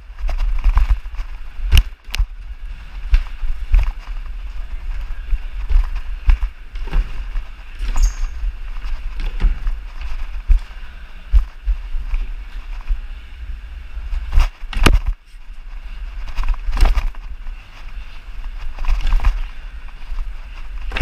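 Parkour run heard through a head-mounted GoPro: irregular thuds and slaps of feet landing and hands striking the obstacles, several of them sharp and loud, over a constant low rumble of the camera's movement.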